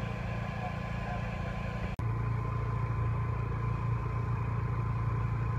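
An engine running steadily with a low drone and a thin constant whine, broken by a brief cut about two seconds in, after which the drone carries on a little louder.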